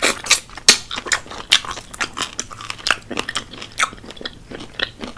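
Close-miked crunching and chewing of crispy fried chicken wings: a quick run of sharp crunches, a few a second.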